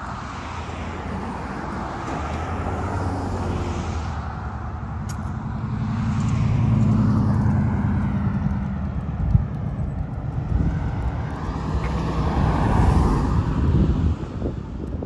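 Engine of a passing vehicle, a low hum that swells to its loudest about seven seconds in, eases off, then rises again near the end.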